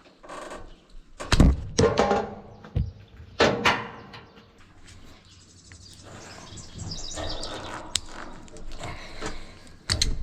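Several sudden knocks and clunks from hands-on work on a round baler, loudest in the first few seconds and again near the end, with birds chirping in the quieter middle stretch.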